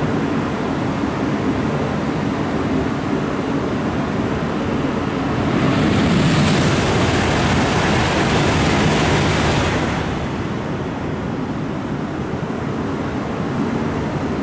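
Tohoku Shinkansen trains, among them an E5-series Hayabusa set, passing through a station at about 290 km/h without stopping: a loud, steady rush of air and wheel-on-rail noise. It swells to its loudest about six to ten seconds in, then eases off.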